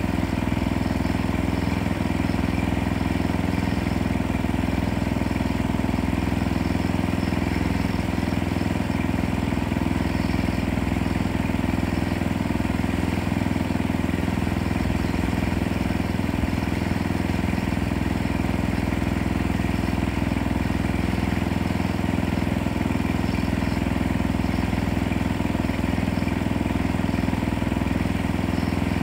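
An engine running steadily at an even speed, with no change in pitch or level.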